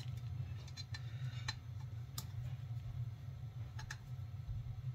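Scattered light metallic clicks and ticks of a hand tool working the muffler fastenings on a chainsaw, over a steady low hum.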